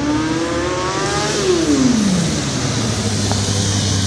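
Motorcycle engine revving during a wheelie stunt. Its pitch climbs for about a second and a half, then drops sharply as it passes, leaving a lower steady engine hum.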